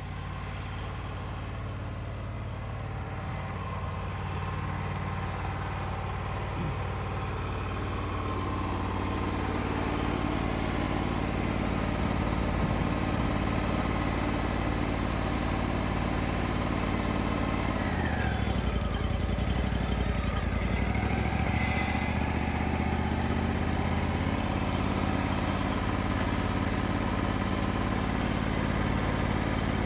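Mobile sawmill's engine running steadily, growing louder over the first ten seconds or so, with a brief dip and change in pitch about eighteen seconds in.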